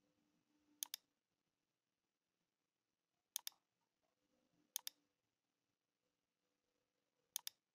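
Computer mouse button clicking: four quick pairs of sharp clicks a second or two apart, over near silence.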